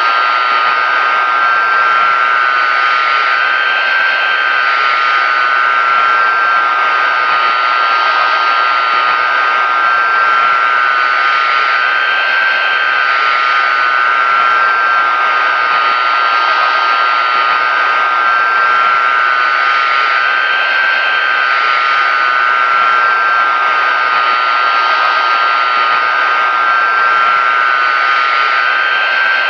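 Pratt & Whitney JT9D-7 turbofan engines of a Boeing 747-200 running steadily: an even, loud rushing noise with a constant high whine held at one pitch.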